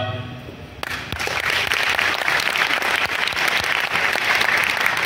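The choir's last held chord fades away, then audience applause breaks out suddenly about a second in and keeps going steadily.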